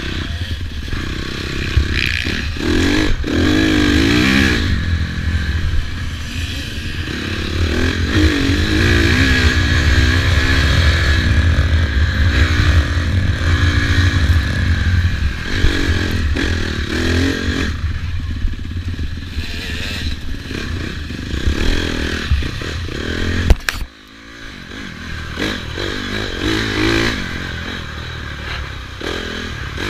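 Dirt bike engine heard from a mic mounted on the bike, revving up and down as it is ridden hard over a rough dirt track, with clatter over a steady low rumble. About 23 seconds in there is a sharp knock, the sound drops off suddenly and then builds back up.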